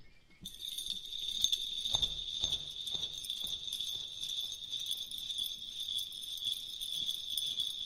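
Jingle bells shaken in a steady rhythm, starting about half a second in.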